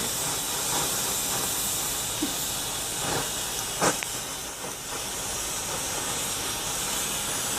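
Gas torch flame hissing steadily as it heats a pinion bearing to expand it for pressing onto the shaft, with one short click about four seconds in.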